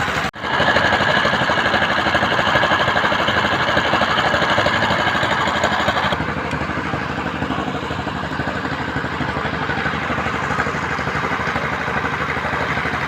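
Engine of construction machinery running steadily with a rapid, even pulse. It breaks off for an instant just after the start, and its higher sound drops a little about six seconds in.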